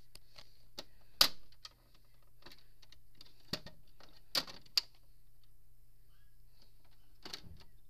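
Hard plastic clicks and knocks of a toy horse trailer and a plastic model horse being handled: one sharp knock about a second in, then several lighter taps and clacks.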